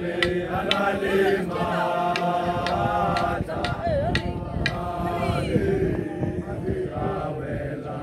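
A group of men singing a chant together, several voices holding and sliding notes at once, with occasional sharp percussive strikes.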